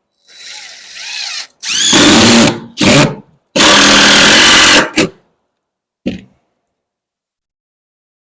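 Power screw gun driving screws into wood framing. The motor spins up with a rising whine, then runs hard in several loud spells, the longest about a second, followed by two short bursts.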